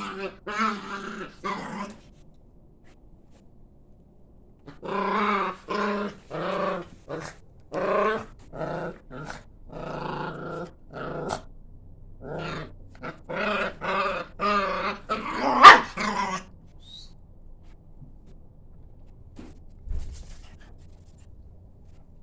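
Dogs growling and snarling in a run of short, repeated bursts, with one sharp, loud bark or yelp near the end of the run; then the growling stops and it goes quiet for the last few seconds.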